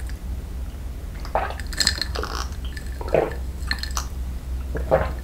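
Close-miked gulping from a glass mug: three swallows about a second and a half to two seconds apart, each followed by short wet clicks.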